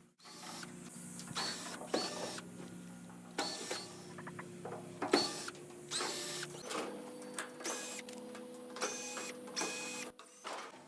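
A small electric motor whirring in stop-start runs, its pitch shifting partway through, with sharp clicks scattered between the runs.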